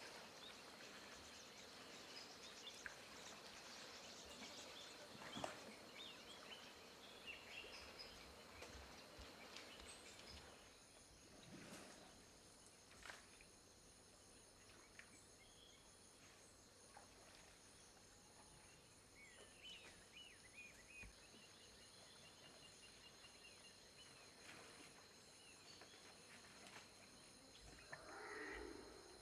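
Near silence: faint ambience of insects and birds, with a steady high insect drone from about a third of the way in, scattered short bird chirps, a few soft knocks, and a short muffled sound near the end.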